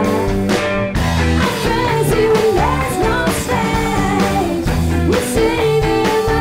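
Live rock band playing: a woman sings lead into a microphone over guitar, keyboard and drums keeping a steady beat.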